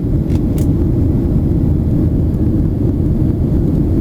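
Steady low drone of an airliner cabin in flight, engine and airflow noise heard from inside the plane, with two faint clicks about half a second in.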